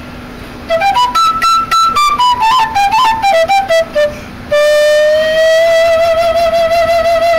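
End-blown wooden flute played solo, starting about a second in. It plays a quick phrase that climbs and then steps down note by note. After a short breath it holds one long note with a slight vibrato.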